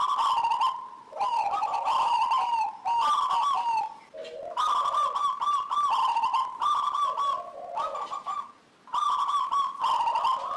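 Zebra dove (local perkutut) singing: a series of short phrases of rapid, bubbling cooing notes, each phrase about one to two seconds long with brief pauses between, some ending in lower notes.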